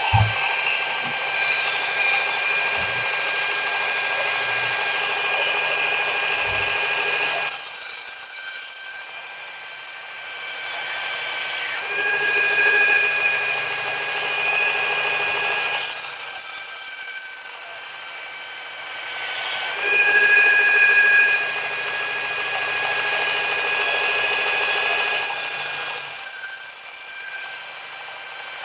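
Work Sharp Ken Onion Mark II electric belt sharpener running at a slow speed with a coarse 120 grit belt, its motor whining steadily. Three times, for a few seconds each, a knife blade is drawn against the belt and the grinding hiss rises loudly over the motor as a new edge is ground onto the dull steel blade.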